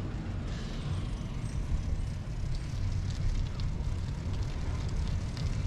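Steady low rumble of road and wind noise on the move, with faint scattered ticks.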